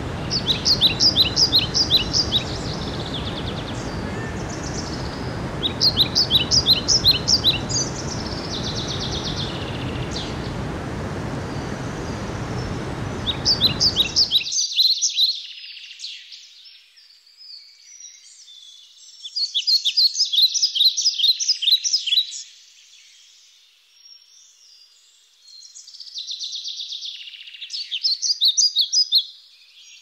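Stream water rushing over rocks, with a songbird repeating a short, rapid trilled song every few seconds. The water sound cuts off suddenly about halfway through, leaving the bird song alone.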